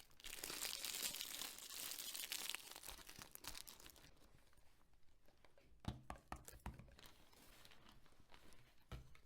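Packaging being unwrapped by hand: a dense crinkling and tearing for the first couple of seconds, then quieter handling with a few scattered taps and clicks around six to seven seconds in and again near the end.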